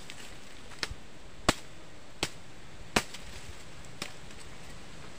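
Machete chopping wood: about five sharp strikes, a little under a second apart.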